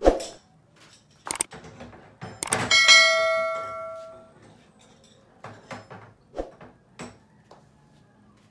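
Metal parts knocking and clanking as they are handled. About two and a half seconds in, one metal piece is struck and rings clearly for about a second and a half as it fades. A few lighter knocks follow near the end.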